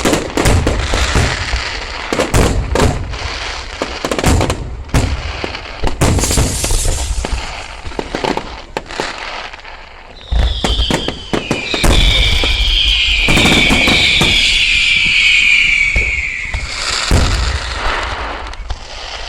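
Fireworks display: a rapid run of bangs from shells bursting. About ten seconds in, a cluster of high whistling fireworks screams for about six seconds, sliding slightly down in pitch over continued bangs, and then the bangs return.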